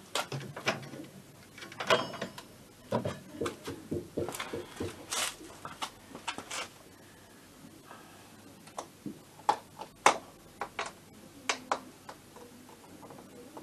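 Scattered clicks, light knocks and rustling of hands and tools working on a stripped-down motorcycle frame and its ignition wiring, with a short lull in the middle.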